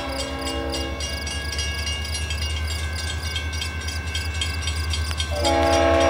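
CSX locomotive's Leslie RS5T five-chime air horn: one blast cuts off right at the start, the diesel engine's low rumble carries on alone for about five seconds, and then the horn sounds again near the end, louder.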